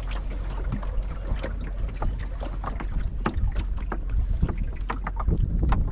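Water slapping and splashing against the wooden hull of a John Welsford Navigator sailing dinghy under way, a quick, irregular run of small slaps. Under it runs wind rumble on the microphone, which grows near the end.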